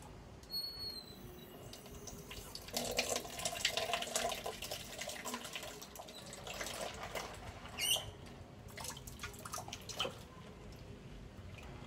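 Water splashing and pouring in irregular bursts as a dog is rinsed with water scooped from a plastic bucket. A short high squeak sounds about eight seconds in.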